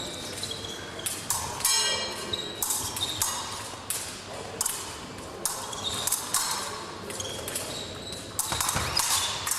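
Sharp metallic clicks, taps and short ringing pings in a large echoing hall, typical of épée blades and fencers' footwork. About two seconds in comes a half-second buzzing tone.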